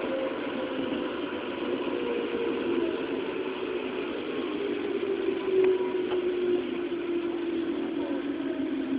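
Running sound of a JR East 211 series electric train heard inside its motor car as it slows into a station: the motor and gear whine falls steadily in pitch over the rumble of the wheels on the rails.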